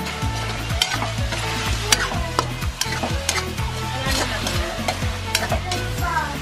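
Meat frying and sizzling in a metal wok while it is stirred, the utensil scraping and clicking against the pan again and again.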